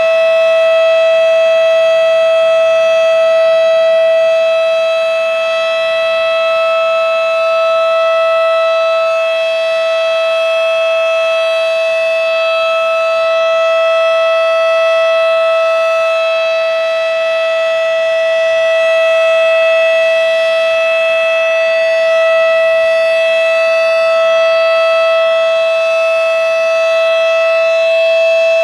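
Federal Signal Model 7 single-tone chopper siren sounding a steady Alert signal: one unbroken tone with strong overtones, its loudness swelling and fading gently.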